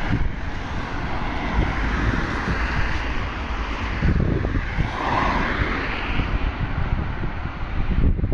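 Road traffic going by on a town street, its noise swelling twice as vehicles pass, over a low wind rumble on the phone's microphone.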